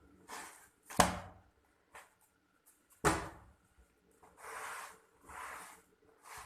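Two sharp knocks and several short scraping swishes, as flatbread and utensils are handled on a clay griddle.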